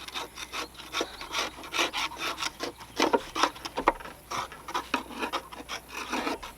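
Rhythmic scraping and rasping, about three strokes a second, on the underside of a zero-turn mower deck caked with gummy grass clippings.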